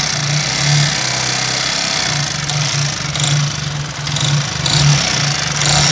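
Yamaha R15 V3's single-cylinder engine idling with a rough, jumbled mechanical noise that swells unevenly. The mechanic takes it for a worn-out cylinder block after 8,000 km without an oil filter change.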